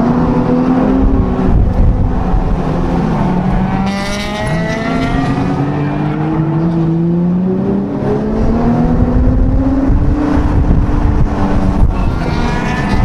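Honda NSX V6 engine heard from inside the cabin, driven hard around a track: the pitch climbs under acceleration, drops, and climbs again.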